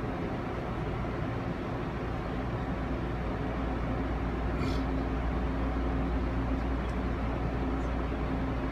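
Interior of an Amfleet coach on a SEPTA/Amtrak Keystone push-pull train riding along: a steady low rumble with a constant hum. A brief high squeak comes about halfway through.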